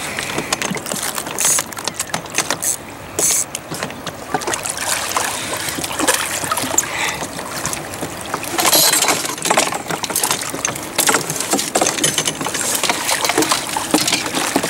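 Choppy lake water splashing and lapping around a small boat's pontoon hull, with scattered short clicks and knocks.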